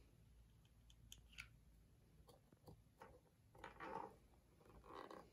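Near silence, with a few faint light clicks and rustles of driftwood pieces being handled and set into place.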